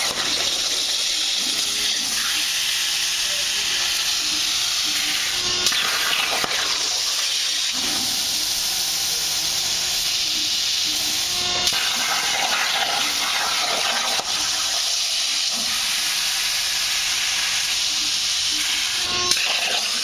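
CNC plasma cutting torch cutting letters into steel plate, giving a steady loud hiss. A sharp click is heard three times, about six seconds apart.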